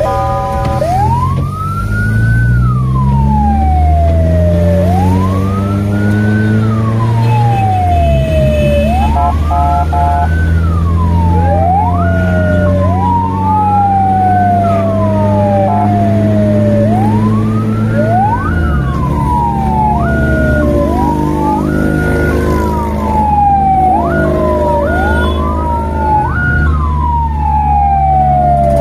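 Fire-response vehicle's siren wailing, rising and falling in long sweeps that come quicker in the second half. The vehicle's engine runs underneath, climbing in pitch and dropping twice as it shifts gears.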